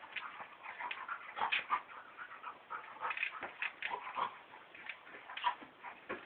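Two dogs play-wrestling: brief whimpering dog sounds over irregular scuffling and clicks.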